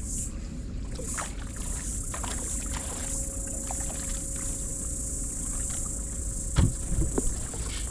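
Small fishing boat on a river: steady water and wind noise around the hull, with a few light clicks and knocks and a louder dull thump about two-thirds of the way through. A faint steady hum comes in about two seconds in and stops near the end.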